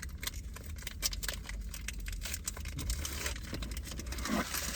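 Crinkling and small crackly clicks from a Pokémon booster pack's foil wrapper and cards being handled and opened, over a steady low rumble.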